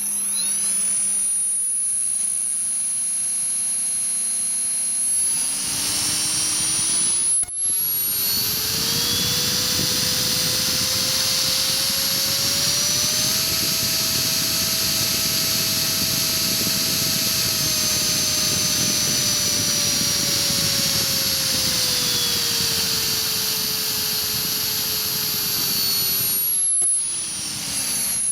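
Align 450M brushless electric motor spinning up, holding speed and winding down, a high whine rising and then falling in pitch over a rough grinding noise. The uploader thinks the grinding means the motor's internal bearings have gone bad.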